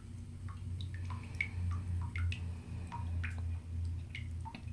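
Bathtub faucet dripping into the bathwater: short plinking drops, about three a second at uneven spacing, over a low hum that swells and fades.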